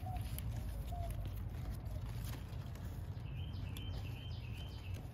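Outdoor garden ambience with a low steady rumble and faint bird chirps, a short run of them about three seconds in. A few soft clicks and rustles come from the pepper plant being handled close to the microphone.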